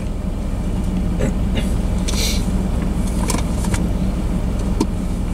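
Freight train rolling past a grade crossing: a steady low rumble with scattered clicks and a brief hiss about two seconds in.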